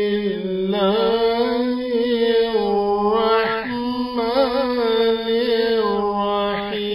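A man chanting Qur'anic Arabic in a melodic recitation style: long drawn-out notes on a fairly steady pitch with wavering ornamental turns, broken by a short pause about halfway through.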